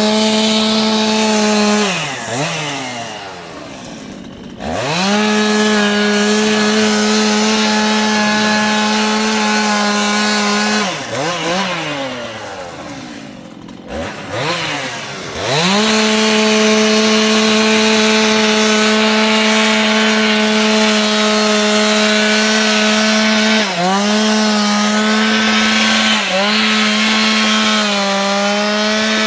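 Gas chainsaw engine running at high speed, dropping back toward idle twice for a few seconds and revving up again. Near the end its speed dips briefly twice.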